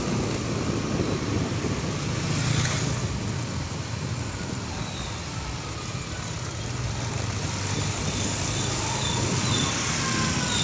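Street traffic: motor vehicles running and passing by, a steady rush that swells about two to three seconds in.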